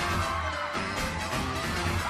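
J-pop dance music with a steady beat and a sustained melody line.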